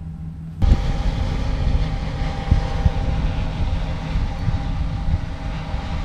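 A semi truck's diesel engine running, with wind noise over it. The sound jumps abruptly louder about half a second in to a steady rumble and hiss.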